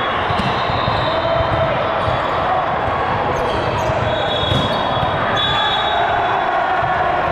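Indoor court game in a sports hall: a steady din of the crowded hall, with high squeaks of sneakers on the court floor and a ball thudding, one sharp hit about four and a half seconds in.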